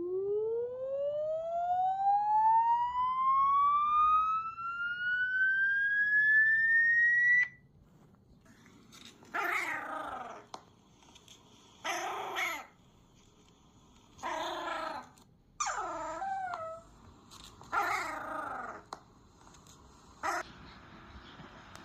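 An electronic tone rising steadily in pitch for about seven seconds, then cutting off suddenly. A dog then answers with about six short howling cries, each a second or less, some bending down in pitch at the end.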